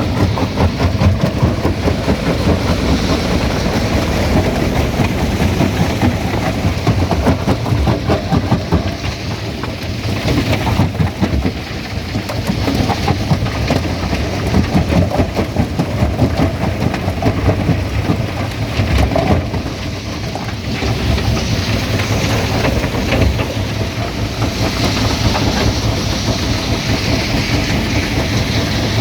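Stone crusher running under load: a continuous heavy rumble with a dense, irregular clatter of knocks as rock is broken up.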